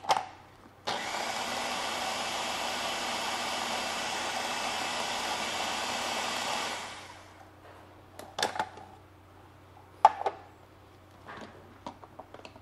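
Electric food processor running for about six seconds, chopping onion into a paste, then spinning down. A few sharp plastic clicks and knocks follow as the bowl is handled and lifted off the base.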